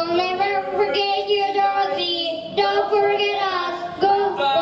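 A child's voice singing a slow tune in long held notes, about four of them, each sustained for around a second.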